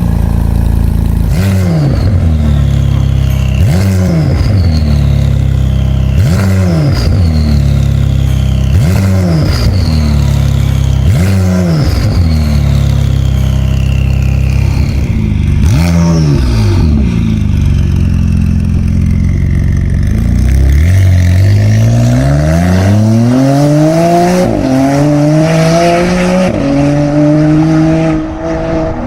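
McLaren Artura's twin-turbo V6 through a Valvetronic Fi exhaust, blipped in short revs about every two seconds over a steady drone. About twenty seconds in, it pulls hard with the pitch rising, dropping briefly at two upshifts.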